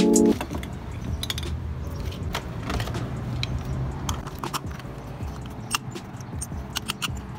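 Scattered clicks and plastic rattles from refuelling a car: the gas-pump nozzle being handled in the filler neck and the plastic fuel cap being screwed back on, over a low steady rumble.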